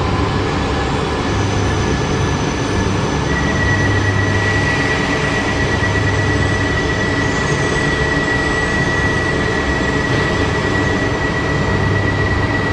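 Steady running noise of Shinkansen trains standing at an underground platform, heard through the open door of an E4 Max car. A steady high whine joins about three seconds in.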